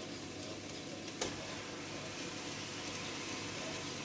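Steady low hiss of a pot of soup simmering on a gas stove, with one short knock about a second in.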